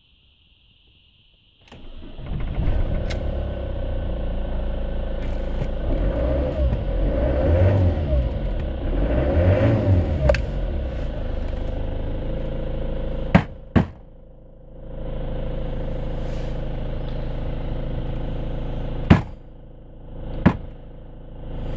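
Ford Transit van engine starting about two seconds in, then idling, with a couple of brief revs. Sharp clicks come twice, each followed by the engine sound dipping for a second or so before it returns.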